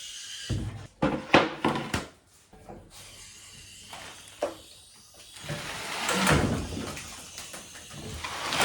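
Metal clunks and knocks from a 6.0 LS V8 and 4L80E transmission being lowered to the ground: a cluster of sharp knocks in the first two seconds, a single knock about four seconds in, and a longer rough scraping noise around six seconds in.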